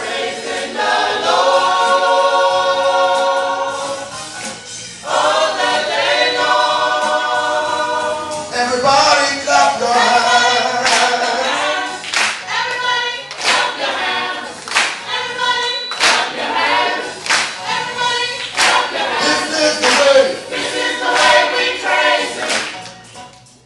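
Student gospel choir singing in harmony without instruments, holding long chords at first, then joined by steady rhythmic hand clapping from about nine seconds in.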